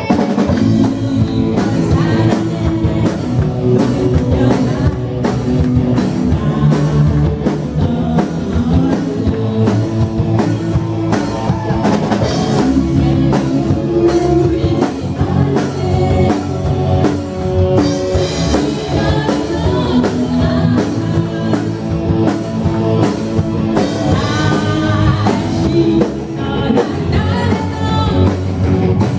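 Live rock band playing a song: a woman sings into a microphone over electric guitar, electric bass and a drum kit keeping a steady beat with cymbals.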